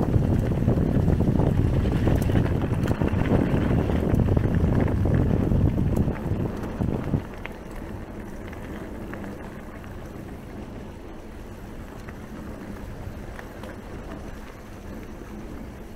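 Wind buffeting the DJI Pocket 2 camera's microphone during a mountain bike ride, a loud low rumble mixed with tyre and trail noise. It drops off sharply about seven seconds in, leaving quieter riding noise.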